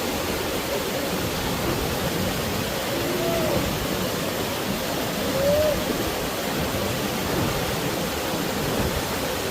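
Waterfall and the stream below it, water rushing steadily.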